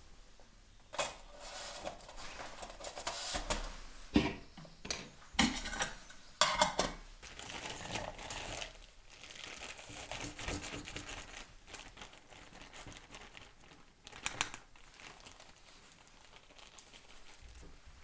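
Food packaging crinkling and rustling as it is handled, with a few sharp knocks and taps in between.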